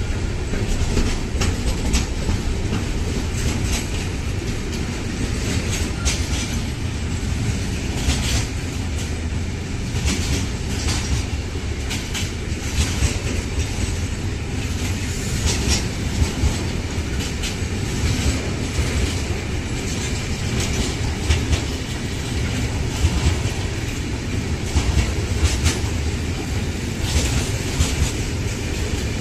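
Long intermodal freight train of loaded container and pocket wagons rolling past, a steady low rumble with the wheels clicking irregularly over the rails.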